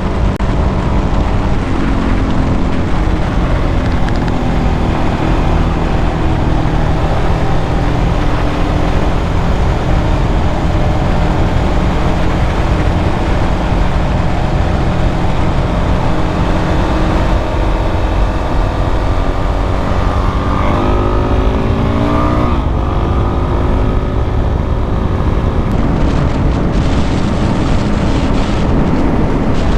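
Dirt bike engine running under way at a steady pace; about two-thirds of the way through, its pitch climbs in a few rising sweeps as the bike accelerates, then settles again.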